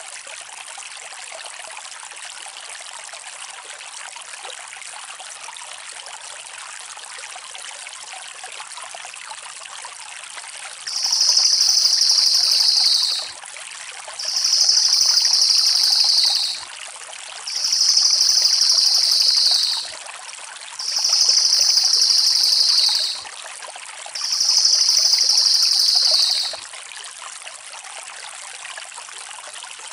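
Crested jay (cililin) giving five long rolling trill calls, each a little over two seconds, high-pitched and dipping slightly toward the end, evenly spaced about a second apart over a steady background hiss.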